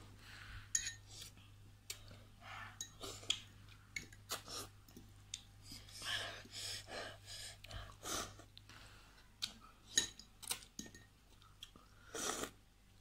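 People eating spicy noodles: chewing, with short breaths and a few sharp clicks of cutlery against glass bowls.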